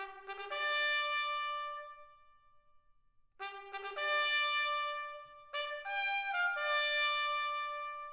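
Background music: a slow melody of long held notes in two phrases, with a short pause between them.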